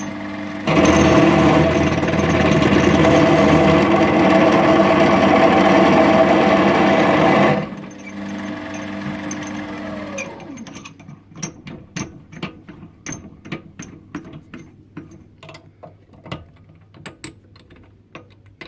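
Metal lathe running, then an unhardened drill bit pressed into mild steel for about seven seconds of loud grinding chatter: the bit rubs and chips instead of cutting, a sign that it was never properly hardened. The lathe then spins down with a falling whine, followed by a run of light, irregular metal clicks and knocks.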